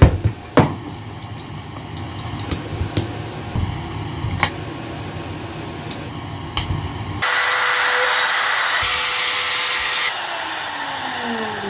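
Knocks and clicks as a Makita router is handled and set up. About seven seconds in, the router starts and runs loudly and steadily for some three seconds, cutting a recess into the end-grain cutting board. It then shuts off and winds down with a falling whine.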